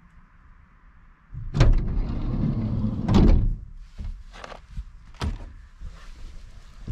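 A Dacia Dokker's sliding side door being pulled open: a latch click, the door rolling back along its track for about two seconds, and a thud as it stops. A few lighter knocks follow as a mattress is handled.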